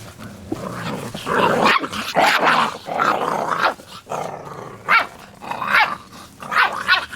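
Golden Irish puppies (golden retriever × Irish setter) play-fighting: a few seconds of rough growling, then four short, sharp yelps or barks in the last couple of seconds.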